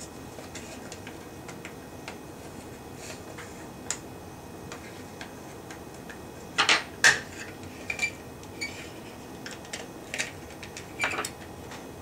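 Light clicks and scraping, then sharp plastic snaps, as a small screwdriver pries apart the plastic housing of a Frigidaire refrigerator timer. The loudest group of snaps comes a little past halfway, with a few more near the end.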